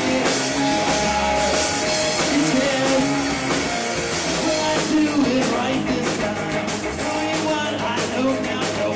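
Rock band playing live: drum kit with cymbal hits, electric bass and guitar, with a lead voice singing over them.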